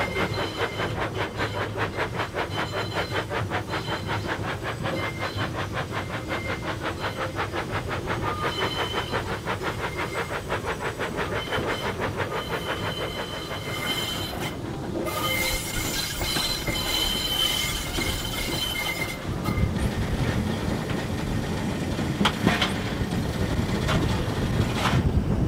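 Inside the cab of a Bulleid West Country light pacific steam locomotive, 34092 City of Wells, on the move: a fast, even beat with rail clatter and steam hiss. Past the middle a high hiss rises for a few seconds, then the beat gives way to a heavier low rumble with a couple of sharp knocks near the end.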